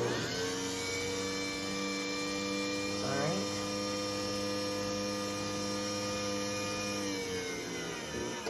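LiftMaster 3850P belt-drive garage door opener's DC motor running unmounted, with no rail or door: a steady, many-toned hum. It rises slightly in pitch as it starts, holds steady, then slows and falls in pitch near the end before stopping, the opener's soft start and stop.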